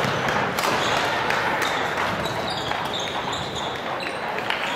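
Badminton play in a sports hall: scattered sharp hits and, from about halfway through, short high squeaks of shoes on the court, over the hall's steady background noise.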